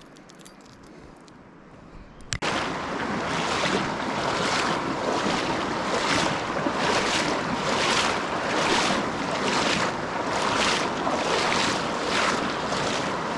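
Loud rushing river water that cuts in suddenly about two seconds in and swells in regular surges a little under a second apart.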